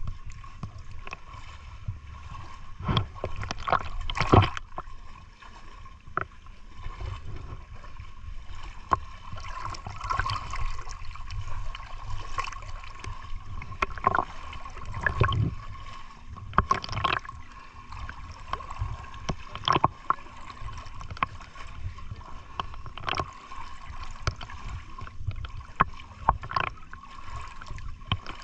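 Water splashing and sloshing in irregular bursts, with occasional sharper splashes or knocks, over a faint steady whine.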